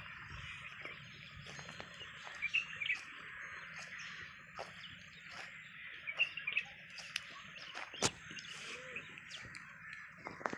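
Many birds chirping together in a steady, dense chorus, with scattered short clicks and one sharp click about eight seconds in.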